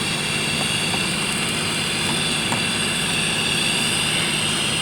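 Steady mechanical running noise: a low hum under an even hiss, with no change in level.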